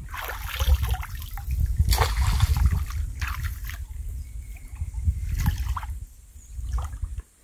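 Water splashing and dripping as a cast net is hauled up out of a stream by someone wading, with a few louder splashes along the way.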